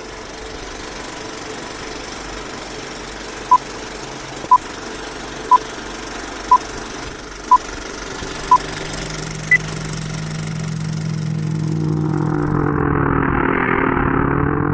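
Film countdown sound effect: a steady mechanical whirring and clatter like a running film projector, with six short identical beeps one second apart and then a single higher beep. Near the end a low drone and a rising whoosh swell in.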